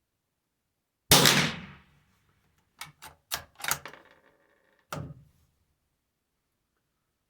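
CZ 457 Varmint bolt-action .22 LR rifle with a 16.5-inch barrel fired once, the shot dying away over most of a second. The bolt is then worked in four quick metallic clicks, followed by a softer single knock about a second later.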